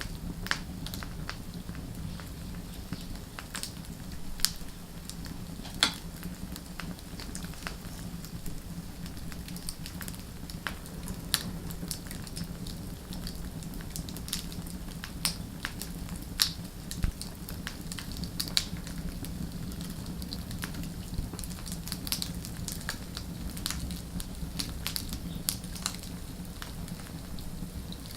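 Wood fire burning and crackling: irregular sharp pops and snaps, about a dozen of them louder, over a steady low rumble of the flames.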